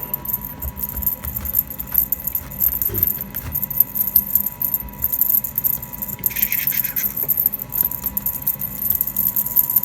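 Light jingling and rattling clicks from a string cat toy being played with, over a faint steady hum.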